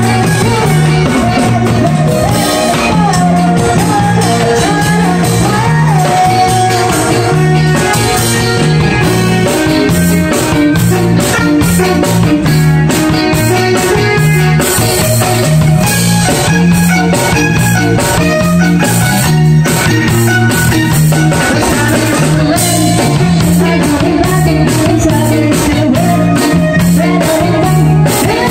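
A rock band playing: a steady repeating electric bass line under guitar and drums, with a singing voice.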